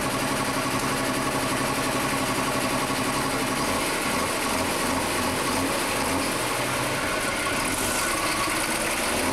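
Deutz Super Stock pulling tractor's turbocharged diesel engine idling steadily, hooked to the sled, then revving up about eight seconds in as it gets ready to pull.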